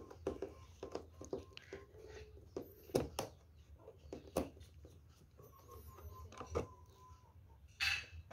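Phillips screwdriver turning screws out of the plastic casing of a Firman FKS16A knapsack electric sprayer: scattered small clicks and knocks.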